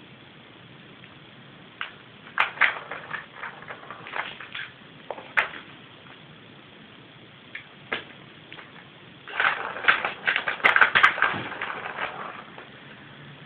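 A cat batting at a plastic circuit ball-track toy: irregular clicks and rattles of paws and the ball against the plastic track. Scattered taps come in the first half, then a dense flurry starts about nine seconds in and lasts some three seconds.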